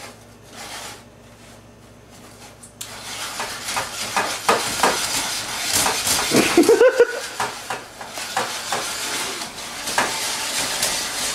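Wire whisk beating cake batter in an enamelware bowl: quick, continuous scraping and clicking of the wires against the bowl, starting about three seconds in. A brief voice-like sound is heard around the middle.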